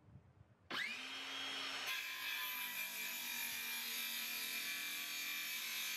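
Makita cordless circular saw starting up with a rising whine under a second in, then running steadily as its blade cuts through a length of 2x1 treated timber.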